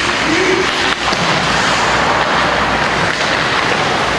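Steady, loud noise in an ice hockey rink during play: crowd chatter and game sounds blend into one continuous wash.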